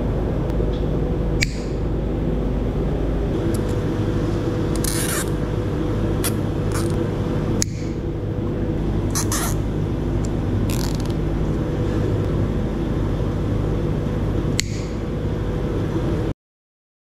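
Hand-tool work on excavator hydraulic hoses and pipes: sharp metallic clicks and a few short scraping hisses over a steady machine drone with a low hum. It all cuts off suddenly near the end.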